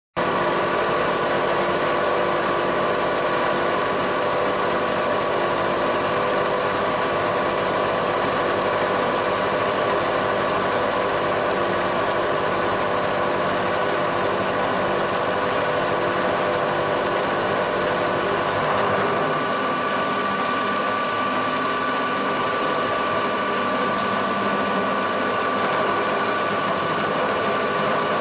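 Hafco HM 54GV milling machine's end mill side-cutting an aluminium block, a steady high-pitched machining whine with squealing tones.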